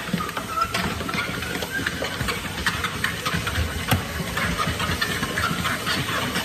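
Treadmill running with footfalls thudding on the belt, mixed with many irregular small clicks and knocks as a dog's claws scrabble on the treadmill deck, and a steady hiss.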